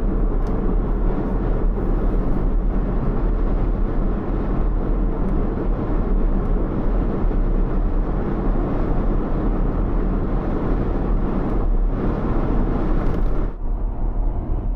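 Jeep driving at road speed: a steady low rumble of engine, tyre and wind noise, with a brief drop in level near the end.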